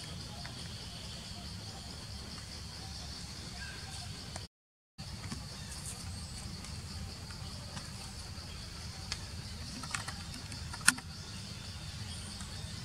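Outdoor ambience with steady insect chirring and a low rumble. A few sharp clicks come near the end, the loudest about eleven seconds in. The sound drops out completely for half a second at an edit about four and a half seconds in.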